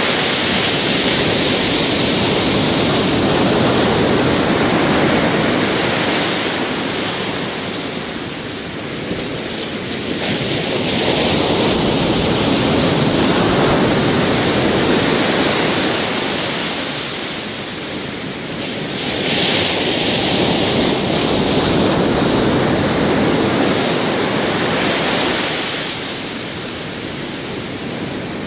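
Ocean surf breaking on the shore: a continuous rush of water that swells and eases as waves break, about every eight to nine seconds.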